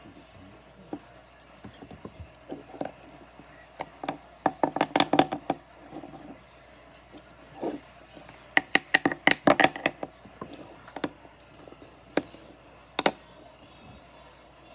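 Sharp clicks and taps in two quick runs, about four and nine seconds in, with single clicks scattered between.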